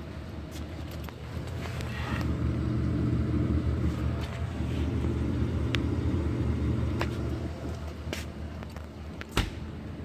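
A True TUC-27 undercounter refrigerator's condensing unit (1/6 HP compressor) running, showing the unit is working: a steady low hum that grows louder for several seconds in the middle and then eases back. A few light knocks and one sharper thump near the end come from the unit being handled.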